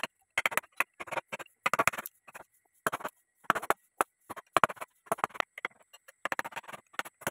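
Short, irregular rasping strokes on wood, about one or two a second with pauses between, as the wooden frame of the lathe is worked by hand.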